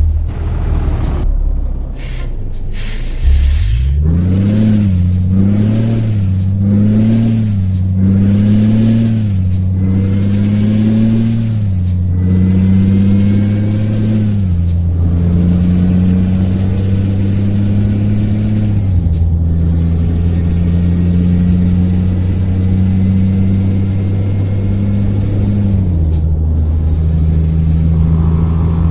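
International truck's diesel engine being revved: a few sharp clicks in the first seconds, then quick rev blips about once a second, then longer holds at high revs with brief drops. A high whistle rises and falls with the revs.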